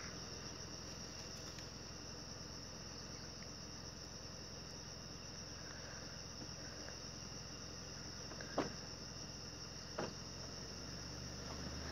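Steady, high-pitched drone of insects. Two sharp clicks about a second and a half apart near the end.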